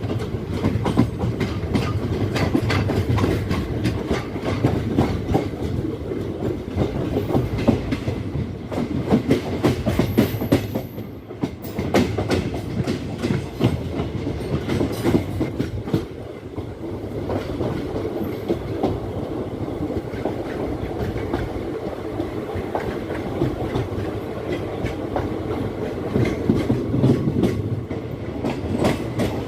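Sangam Express coaches rolling past on the rails, their wheels clattering over the rail joints in a continuous clickety-clack over a steady rumble.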